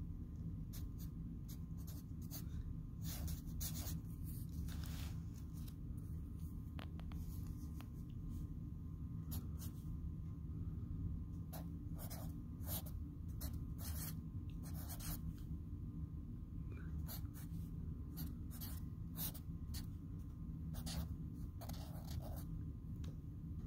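Felt-tip permanent marker writing numbers on lined notebook paper: short, scratchy strokes at irregular intervals, over a steady low hum.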